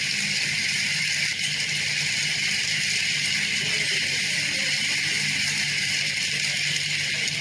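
Heavy hail pelting down, a dense, steady clatter of hailstones striking the ground.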